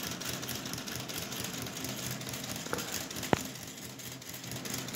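Small electric motor of a construction-kit model helicopter running steadily, whirring as it drives the rotor through its plastic gears. Two light clicks about three seconds in, the second sharper.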